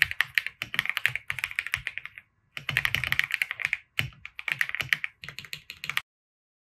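Fast typing on a computer keyboard, in three runs of keystrokes broken by short pauses, stopping shortly before the end.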